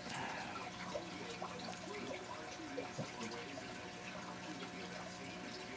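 Quiet room tone: a faint steady low hum with small scattered clicks and rustles.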